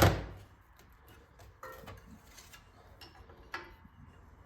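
Wrench working the rusted muffler lock nut on a Clinton 410 small engine: one sharp knock at the start, then light scattered clicks and taps of metal on metal.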